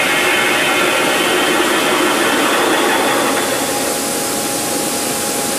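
CNC beam drilling machine drilling steel: steady machine noise with a high whine. A little over halfway the whine thins out and one steady tone remains.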